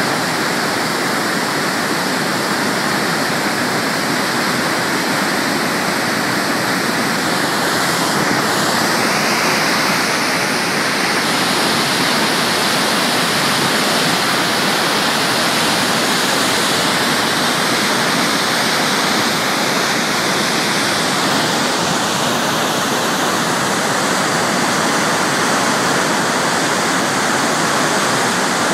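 Fast white water rushing down a dam's concrete spillway chute: a loud, steady rush with no let-up.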